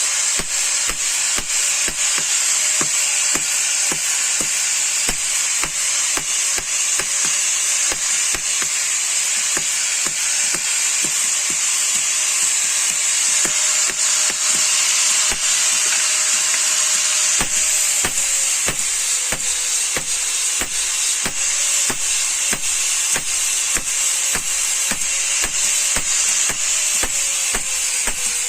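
Hammer blows on steel, about three a second, struck steadily throughout, over a steady hiss and a motor hum.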